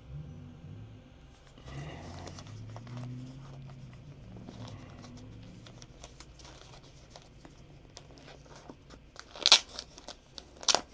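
Plastic packaging crinkling as a sealed documentation packet is handled, with two loud sharp crackles near the end, about a second apart.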